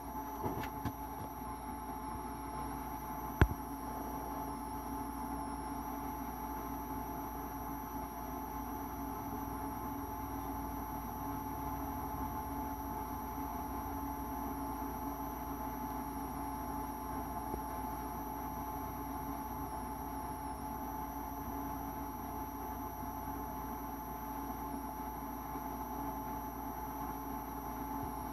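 Steady electrical hum with a faint high whine above it. There are a few faint clicks in the first second, and one sharp click about three and a half seconds in, the loudest sound.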